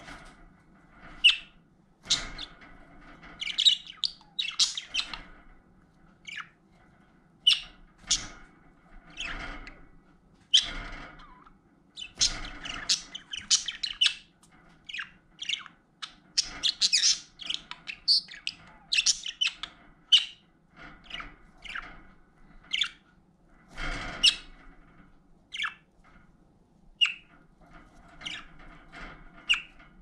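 Pet budgerigars chirping: a string of short, sharp calls with brief gaps between them, coming thickest around the middle.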